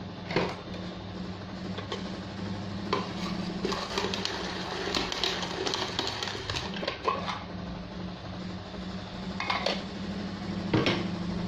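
Irregular clinks and taps of spoons and dishes, as seasoning is spooned out and the quail are handled for marinating, over a steady low hum.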